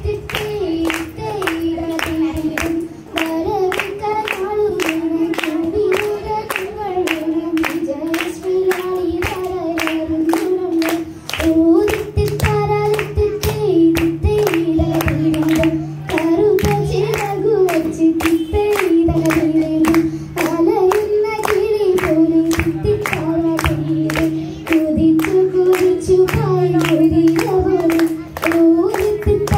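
A girl singing a Vanchipattu, the Kerala boat song, in Malayalam into a microphone: a steady, stepwise melody, with hand claps keeping an even beat at about two a second.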